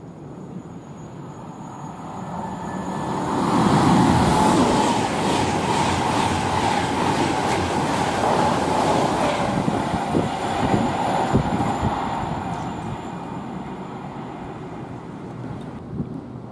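A train passes at speed: a rushing sound that builds to a peak about four seconds in, holds with a few wheel knocks over the rails, then fades away.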